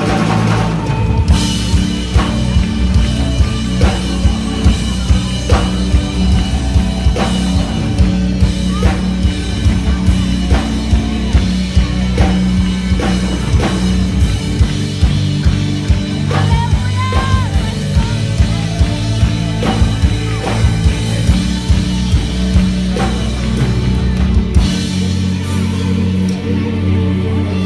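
Live worship band playing an instrumental passage: a drum kit keeps a steady beat of about two hits a second over sustained bass and keyboard chords. The low bass drops out near the end.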